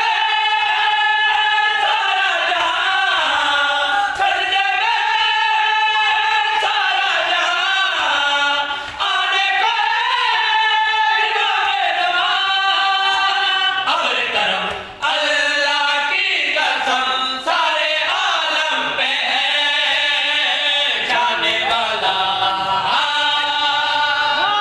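Several men's voices singing a devotional qasida together, unaccompanied, with short breaks between lines.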